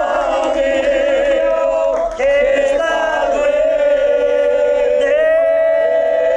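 A group of men singing together, holding long notes, with a short break for breath about two seconds in and a new phrase starting about five seconds in.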